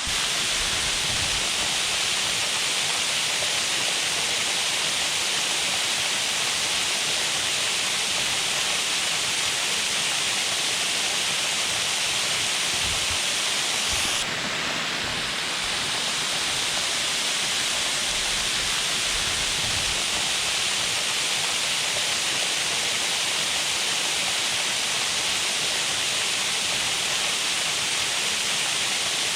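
Water falling over a dam spillway, a steady, loud rushing. A brief click comes about halfway through, and the level drops slightly after it.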